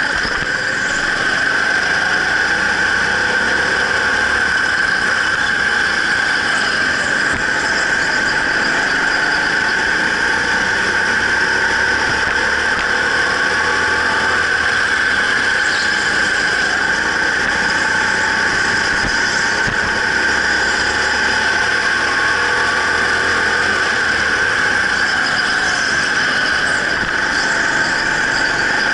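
Racing go-kart running at speed, a steady high-pitched squeal over a fainter engine note that rises and falls slightly.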